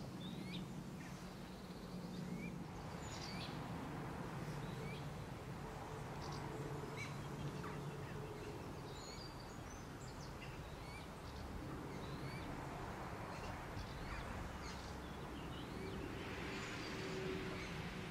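Riverside outdoor ambience: scattered short chirps and calls of small songbirds over an even background hiss and a steady low hum.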